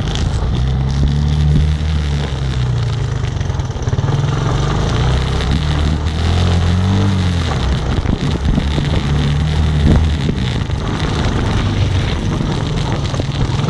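A motor vehicle's engine running under way, its pitch rising and falling a little with the throttle.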